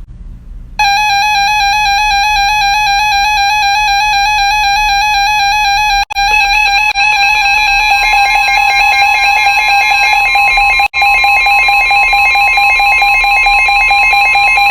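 Emergency Alert System attention signal: a loud, steady electronic alert tone that starts about a second in and drops out twice for an instant. A second, slightly higher tone joins partway through. It announces the flash flood warning that follows.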